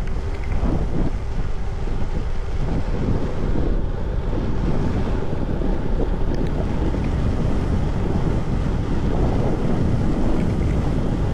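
Heavy wind buffeting the microphone of a bicycle-mounted camera on a fast downhill descent, a steady low rumbling roar.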